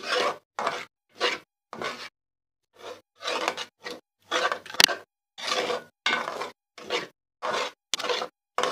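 A spoon scraping round a pan, stirring a thick cornflour-and-milk paste as it thickens: strokes a little over half a second apart, a short pause about two seconds in, and one sharp click about halfway.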